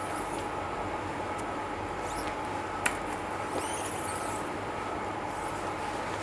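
Steady background room hum with faint scratchy handling noises as a gloved hand loops a thin metal guide wire, and one sharp click about three seconds in.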